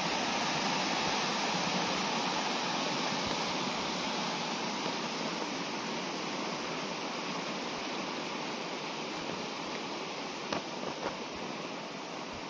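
Mountain stream rushing over rocks in a small waterfall, a steady rush of water that slowly grows fainter.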